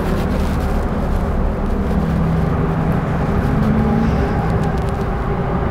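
Steady low rumble of road traffic, with the faint hum of vehicle engines running through it.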